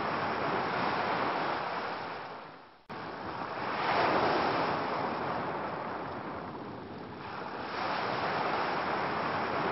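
Ocean surf: waves washing in and drawing back in slow swells of noise. About three seconds in, the sound fades away and then cuts back in abruptly.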